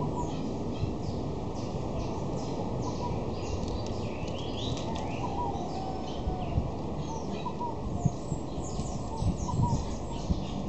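Birds chirping in quick, short high calls over a steady outdoor background noise, with a few short knocks in the second half.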